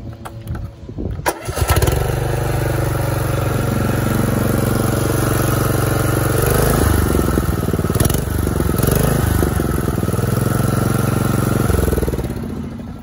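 Riding lawn mower's small engine started with the key: after a few clicks it catches about a second and a half in and runs steadily. Its speed shifts around the middle, and near the end it winds down.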